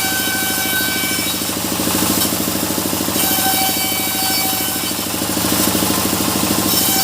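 Sawmill machinery running steadily, with a fast, even low pulse and a high whining tone that comes and goes every few seconds.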